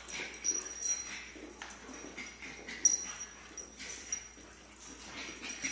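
A pit bull and two smaller dogs play-wrestling on a rug: scuffling paws and bodies, with short whimpering play noises and a sharp knock about three seconds in.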